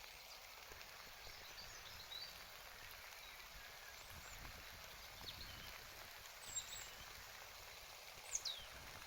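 Light rain falling as a faint, steady hiss, with small birds chirping now and then and one short falling whistle near the end.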